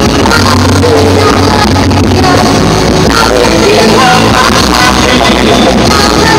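A live rock band playing loudly, a woman singing over electric guitars and bass.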